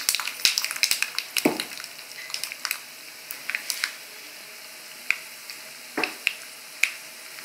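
Urad dal, mustard seeds and cumin frying in a spoonful of hot oil in a small pan, a tadka tempering: a steady faint sizzle with sharp crackling pops. The pops come thick in the first two seconds, then thin out to one every second or so.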